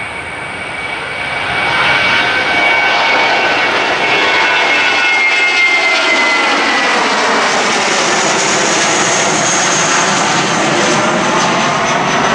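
Twin-engine Airbus A320-family jet airliner climbing out at takeoff thrust close overhead. The loud, steady jet engine noise swells about two seconds in, with a high fan whine that slides down in pitch as the plane passes.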